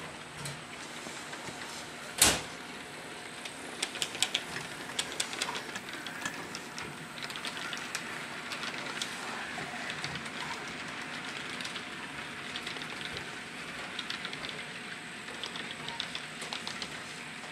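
Model railroad freight cars rolling past, their wheels clicking over rail joints and turnouts in irregular runs over a steady running noise, with one sharp, louder click about two seconds in.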